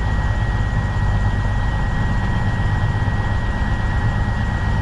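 Stationary train idling at the platform: a steady low engine hum with a thin, constant high whine over it.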